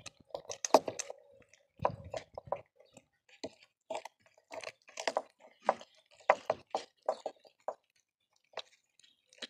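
Cats chewing and crunching on raw meaty bones: irregular wet crunches and smacks, with a short pause near the end.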